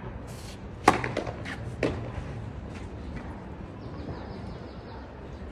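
Tennis serve practice on clay: a racket strikes the ball hard about a second in, and a second, lighter impact follows about a second later, with a few lighter ball clicks around them.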